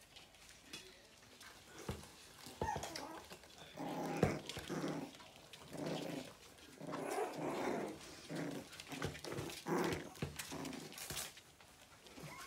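Havanese puppies play-growling in a string of short growls, with a few sharp knocks among them.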